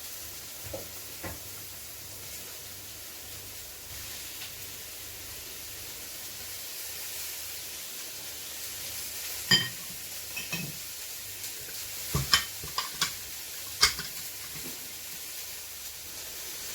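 Chicken legs searing in hot oil in a pan, a steady sizzle. In the second half there are several sharp clinks of a utensil against the pan.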